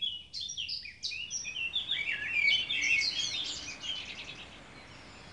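Songbirds chirping and singing, many short calls and trills overlapping, thinning out about four seconds in.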